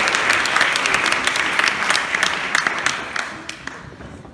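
Audience applause, many hands clapping, fading away about three seconds in.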